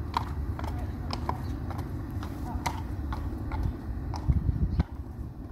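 Horse's hooves clip-clopping on a hard yard, several sharp strikes a second, over a low rumble on the microphone that gets louder for a moment about four seconds in.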